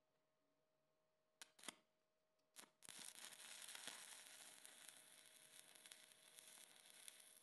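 Faint electric arc welding on a steel bolt and nut held in a vise: a few sharp snaps, then from about three seconds in a steady crackling hiss as the arc burns.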